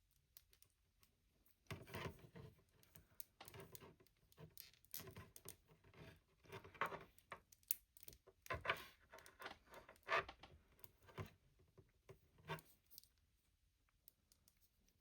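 Plastic action figure being handled as its legs are moved: faint scattered clicks and scrapes from the jointed legs, starting about two seconds in and dying away near the end.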